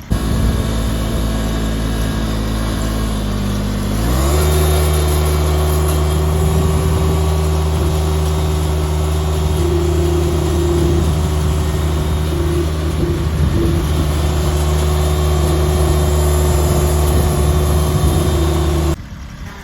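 Small lawn tractor engine running steadily, then throttled up about four seconds in to a steady, higher-pitched full-speed run, which cuts off abruptly near the end.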